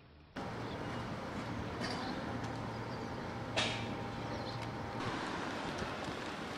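Outdoor ambience beside a railway station: a steady wash of traffic and rail noise with a low hum that fades out about five seconds in, and one sharp click about three and a half seconds in.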